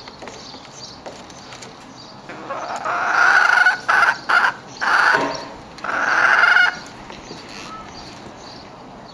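A white hen calling in a run of loud, drawn-out squawks starting about two seconds in: one long call, two short ones, then two more long calls, stopping about two seconds before the end.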